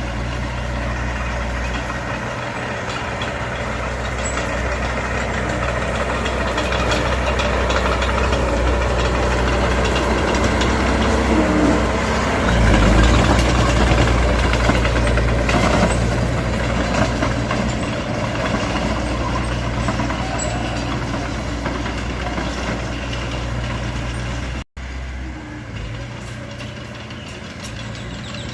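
Heavy diesel engine of a Mitsubishi BD2F bulldozer running steadily under load, swelling louder around the middle. The sound cuts out for an instant near the end and comes back a little quieter.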